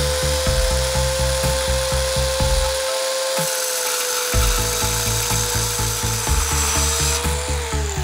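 Compact mini circular saw cutting a thin sheet panel: a steady motor whine with a hissing cut, the pitch falling as the saw is lifted away and winds down near the end. Background music with a steady beat runs underneath.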